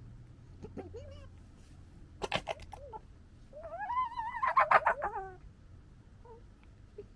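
European red foxes squabbling: a quick burst of throaty gekkering chatter, then a wavering, whining call with rapid chattering through it that is loudest about five seconds in.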